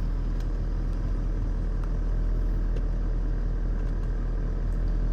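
Ford 6.7 Power Stroke V8 turbo-diesel idling steadily, heard from inside the truck's cab as an even low rumble.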